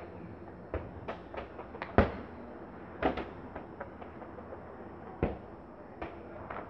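A football being kicked and bouncing on brick paving: a series of sharp thuds at uneven intervals, the loudest about two seconds in.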